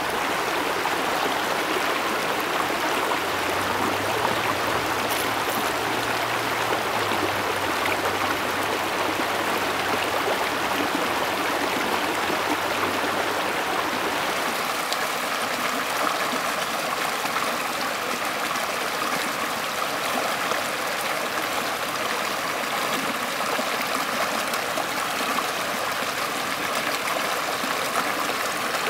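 Shallow mountain creek running over and between boulders and stones: a steady, even rush of flowing water.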